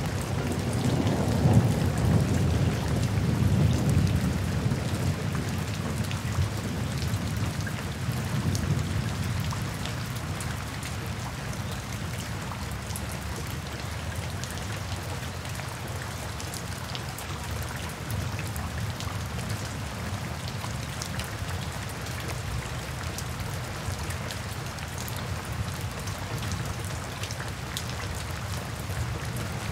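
Steady rain falling through trees, with individual drops ticking. A low rumble of distant thunder swells in the first few seconds and fades away by about a third of the way in.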